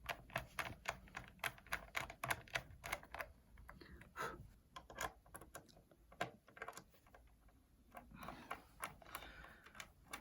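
Faint, quick clicking and tapping of a small screwdriver driving screws back into an iMac's housing: dense clicks for about the first four seconds, then fewer and more spread out.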